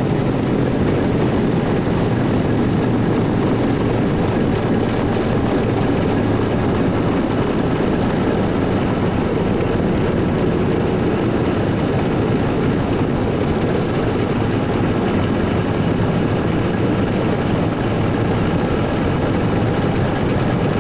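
Cabin noise of a Cessna T303 Crusader's twin piston engines and propellers with rushing airflow, a steady loud drone with a low hum as the aircraft rolls out along the runway after landing.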